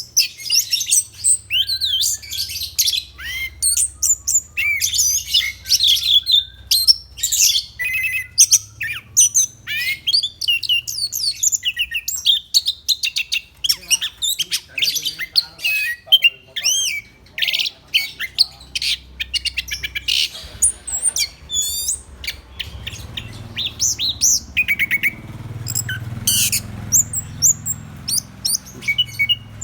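Orange-headed thrush singing in full voice: a long, varied run of rapid, high whistled and chattering phrases with hardly a break.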